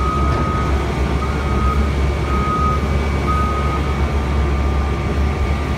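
Caterpillar wheel loader's diesel engine running steadily with a low rumble while the machine backs up with a full bucket. Its reversing alarm beeps four times, about once a second, then stops near the end.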